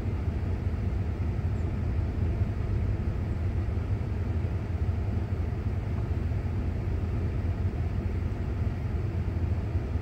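Car engine running with a steady low hum, heard from inside the cabin.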